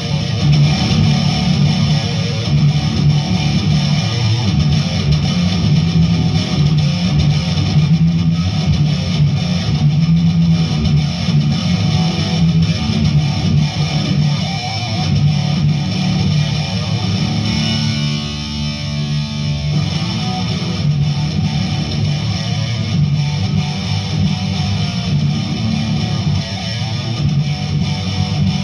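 Electric guitar played alone through a distorted amp channel for a sound check, riffing continuously. The playing thins out and gets a little quieter for a couple of seconds about two-thirds of the way through.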